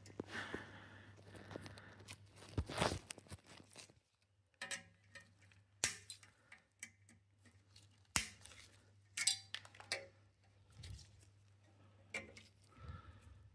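Side cutters snipping plastic cable ties off exhaust manifold spring clips: scattered sharp clicks and snaps as the ties are cut and handled.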